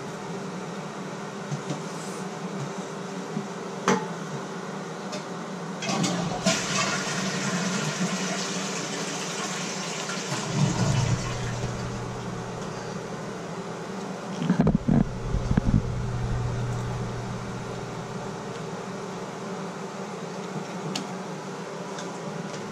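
Small clicks and knocks of metal and plastic parts being worked off a Delta shower valve's cartridge stem with a screwdriver, with a few dull bumps around the middle, over a steady hiss.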